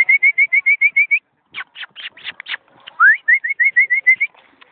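A person whistling to call puppies: a quick upward whistle, then a fast run of short, evenly repeated whistle notes, about seven a second. The pattern comes twice, with a few short sharp sounds between the runs.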